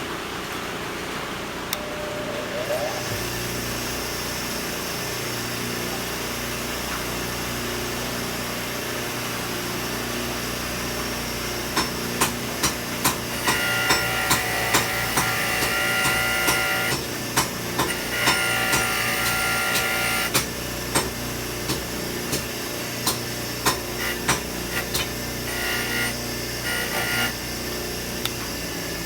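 Hammer blows on steel at the anvil while forging a hardy tool, coming about two a second in runs from about twelve seconds in, over a steady fan-like hum. A steady higher-pitched ringing tone sounds in two stretches in the middle of the hammering.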